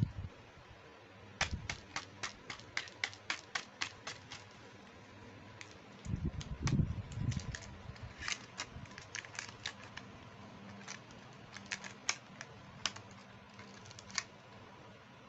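Rapid runs of small, sharp plastic clicks, about four or five a second, as pieces of a plastic toy makeup set are handled. A few soft, dull thuds come about six seconds in.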